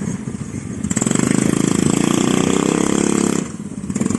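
ATV engine running, throttled up about a second in and held for a couple of seconds, then eased back near the end.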